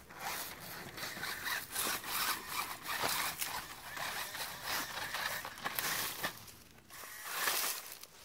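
Dry grass and fallen leaves rustling and crackling in irregular scratchy bursts as an RC rock crawler's tyres push through them, with a brief lull late on.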